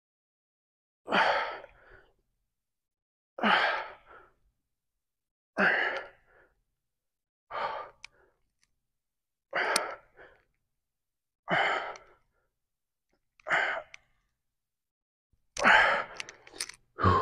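A man breathing out hard through his mouth with each rep of dumbbell lunges: one short, forceful exhale about every two seconds, seven in a row. Near the end come several quicker, louder breaths together.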